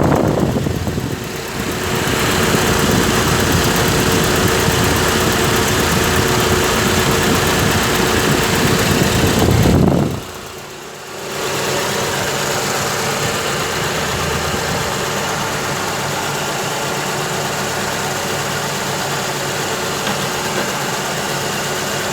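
Carbureted Mitsubishi 4G13 four-cylinder engine running at idle, heard close by, with an HHO generator feeding its air cleaner. The sound is louder and rougher for the first ten seconds, then drops and settles to a steady, even idle.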